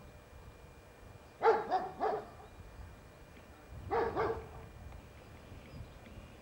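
A dog barking in two short bursts, three barks and then two, about two and a half seconds apart.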